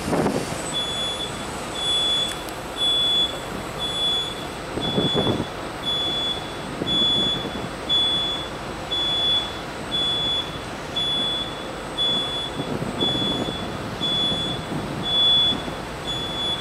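Electronic warning beeper sounding evenly spaced high beeps, about two a second, starting about a second in, over irregular low rumbling gusts.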